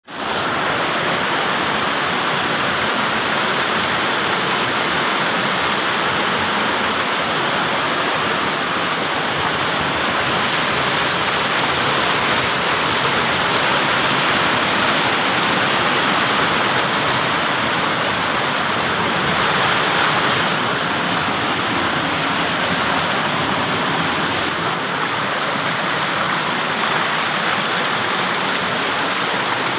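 Waterfall rushing with a steady, loud roar of falling water.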